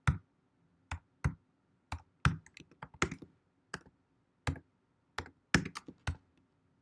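Typing on a computer keyboard: a string of separate, irregularly spaced keystrokes, as a folder name is typed in.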